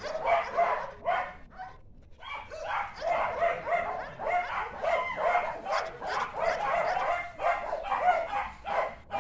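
A dog barking over and over in a quick, steady run, with a short pause about two seconds in.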